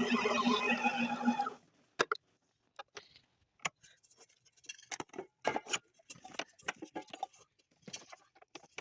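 A small kitchen appliance's electric motor hums steadily and stops abruptly about a second and a half in. Irregular light clicks and knocks follow, like parts being handled.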